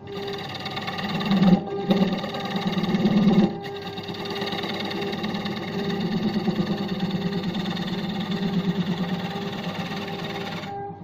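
Belt-driven wood lathe running while a long hand-held turning tool cuts into a large spinning wooden disc, a fast rattling chatter. The cutting is louder from about a second to three and a half seconds in.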